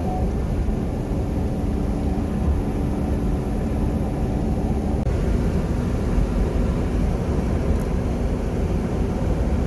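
Vehicle on the move: a steady low rumble with a faint hum that shifts slightly about five seconds in.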